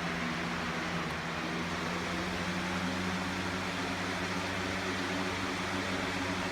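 Hurricane 20-inch box fan running steadily: an even rush of air over a low, steady motor hum.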